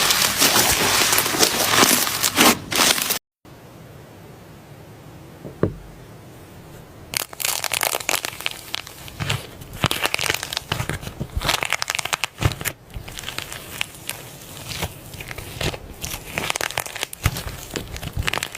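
Crinkling and crackling from a soft squeeze toy being squeezed and handled, dense for the first three seconds. After a sudden cut there is a quieter stretch with a single click, and the crackling starts again about seven seconds in with many sharp crackles.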